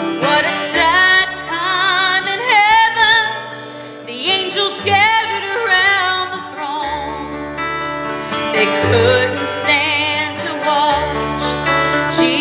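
Live bluegrass gospel music: a woman singing with vibrato over mandolin, acoustic guitar and upright bass.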